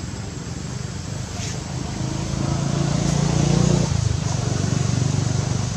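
Low engine rumble of a passing motor vehicle, swelling about two seconds in and loudest around three to four seconds in.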